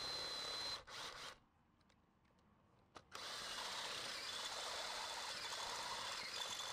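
Ridgid drill driving a step drill bit through the soft plastic of a driveshaft centering bushing, running steadily with a high whine. It stops about a second in and starts drilling again about three seconds in.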